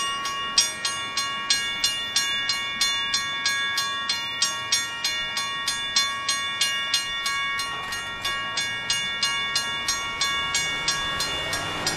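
Railroad grade-crossing bell ringing steadily at about three strikes a second. Each strike rings on in a bright metallic tone. It stops near the end as the crossing gates go up behind the departing train.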